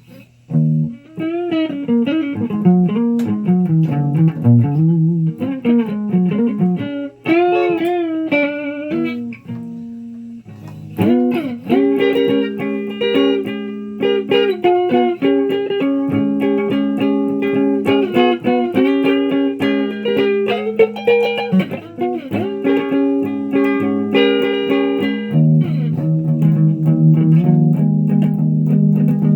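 Electric guitar played solo: bent, wavering notes for about the first ten seconds, then a run of held notes and chords over a steady low note.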